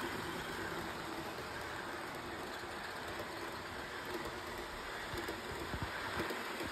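HO scale model passenger train running along the track: a steady rolling whir of wheels on rails as the cars pass.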